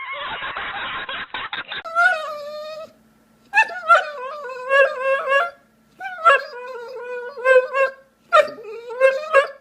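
A dog giving a series of drawn-out, wavering whining howls, each about a second and a half long and starting sharply, after a burst of noisy crackle in the first two seconds.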